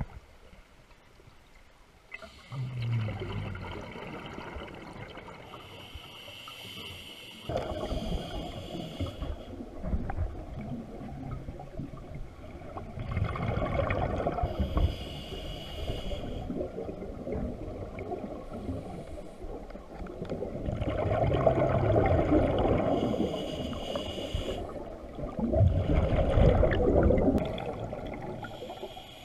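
A scuba diver's regulator breathing underwater in slow cycles: each breath hisses through the regulator, then a longer burst of exhaled bubbles follows, repeating about every nine seconds.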